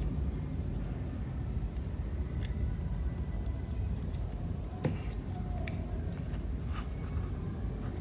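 Scattered light clicks and taps of small plastic figure parts being handled and fitted together, the sharpest about five seconds in, over a steady low background rumble.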